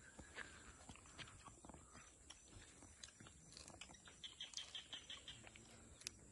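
Faint close-up chewing and crunching of food, with scattered small clicks of mouth and hand sounds. About four seconds in, a quick run of about seven high chirps.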